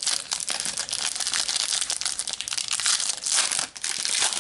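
A Panini Adrenalyn XL trading-card packet being torn open by hand: steady crinkling and tearing of the wrapper.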